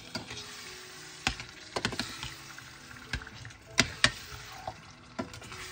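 Metal spoon stirring chicken livers in a stainless steel pot, clinking sharply against the pot's side several times at irregular intervals, over a soft steady sizzle of the cooking sauce.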